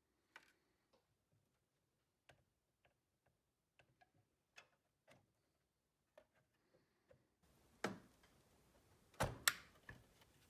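Scattered faint clicks and taps, a few a second apart. About seven seconds in, a faint steady hiss comes up, with several louder sharp clicks near the end.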